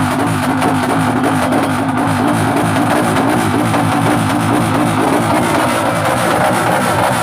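Loud background music with guitar and drums.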